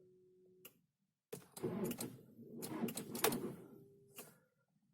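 Skoda Octavia Mk2's starter cranking the engine on a weak battery, about 11.8 V, for about three seconds with a clattering, clicking sound. The engine does not start.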